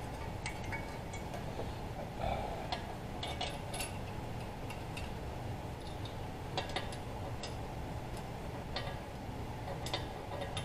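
Scattered light metallic clicks and clinks of steel cylinder head bolts being handled and set in place by hand, over a steady low background hum.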